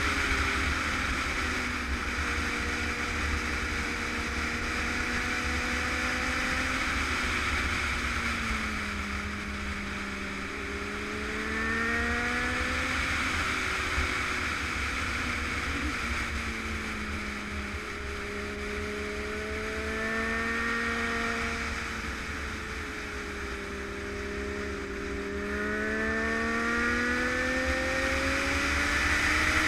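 Motorcycle engine heard from onboard while riding. Its pitch rises and falls several times with the throttle through the bends, over a steady rush of wind on the microphone.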